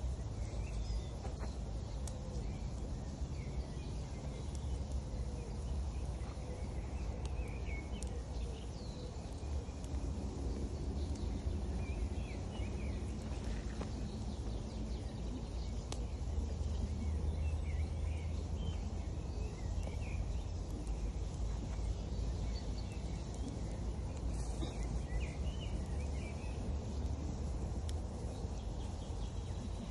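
Steady low rush of a river, with small birds chirping now and then and a few faint crackles from a wood campfire.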